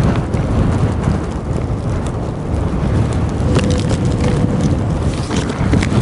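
Strong gusty wind buffeting the microphone in a constant low rumble, with dry wind-driven snow ticking against the camera rig throughout.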